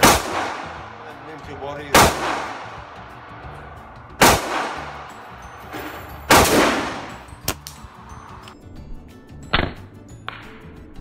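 Four handgun shots about two seconds apart, each ringing on in the echo of an indoor shooting range, followed near the end by a few lighter sharp cracks.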